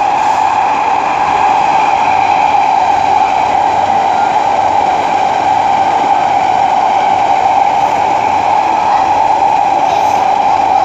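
Interior running noise of an SMRT C151A MRT train cruising at a steady speed: an even rumble with a strong, steady mid-pitched hum over it.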